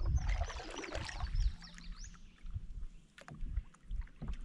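Kayak paddle stroke splashing and swirling in the water alongside the hull, with a bird's quick high chirps in the first second and a half. A few sharp knocks follow about three seconds in.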